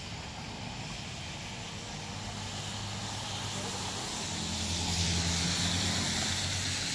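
Traffic noise: a steady low engine hum with a hiss of tyres on wet pavement that swells about four seconds in.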